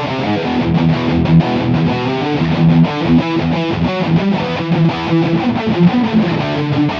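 Distorted electric guitars playing a heavy metal riff: fast, rhythmic chords, one of several test mixes of the same riff.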